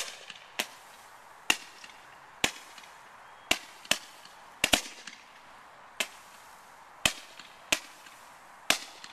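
Fireworks going off: about a dozen sharp bangs at uneven intervals, roughly one a second, with a pair close together near the middle.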